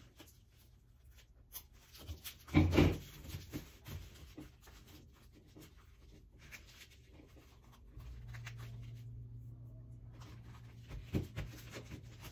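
Handling and cutting sounds on a packing-tape and cling-wrap seat pattern as slits are cut into it: scattered small clicks and rustles, with one louder knock or crinkle a few seconds in. A low steady hum starts about eight seconds in.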